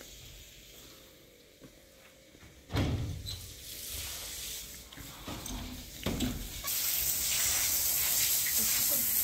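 A sudden knock and rustle about three seconds in, followed by a few smaller handling noises. About two-thirds of the way through, a steady high hiss like food frying starts.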